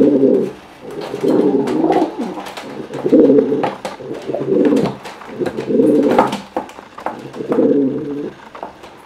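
Domestic pigeons cooing in a squabble between two birds: about six rolling, low coo phrases, each roughly a second long, with scattered sharp taps between them.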